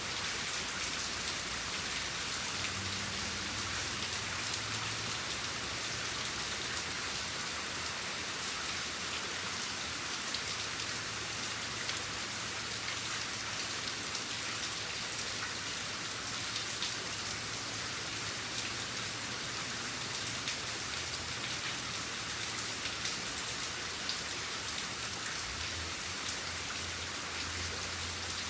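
Steady rain falling, a dense even hiss of countless drops pattering on surfaces, with a faint low hum coming and going underneath.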